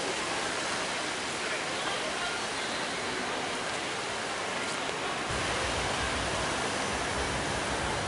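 Steady rushing outdoor noise, with a low rumble joining it just past halfway and continuing.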